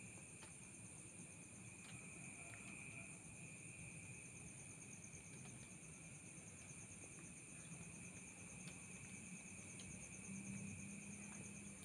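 Night insects, crickets or similar, trilling steadily and faintly: a very high, finely pulsing chorus with a second, lower continuous trill beneath it, and a few small clicks scattered through.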